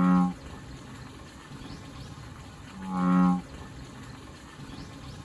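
Background music: a low, bowed-string-like note with rich overtones that swells up and stops short, once near the start and again about three seconds in, repeating on an even three-second cycle.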